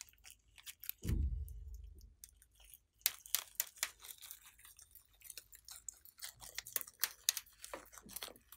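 Scissors snipping through a clay-filled plastic piping bag: a quick run of sharp, crisp snips and crinkles from about three seconds in. About a second in, a short low dull sound, falling in pitch, is the loudest thing.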